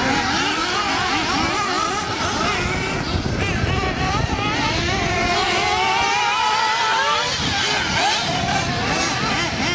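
Several 1/8-scale nitro RC buggy engines running at high revs, their pitch rising and falling quickly and overlapping as the buggies accelerate and brake through the corners.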